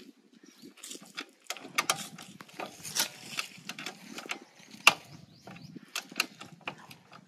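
Socket ratchet wrench clicking in irregular runs as a nut is loosened and spun off a motorcycle's long through-bolt, with a few sharper metal knocks; the loudest knock comes about five seconds in.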